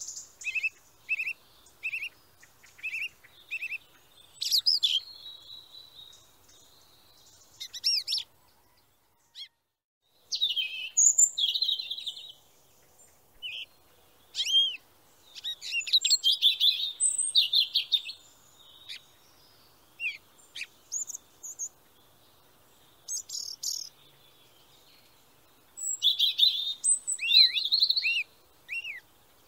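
Small birds chirping and singing. First comes a run of evenly repeated chirps, about two a second, then clusters of quick chirps and arching whistled notes with short pauses between them.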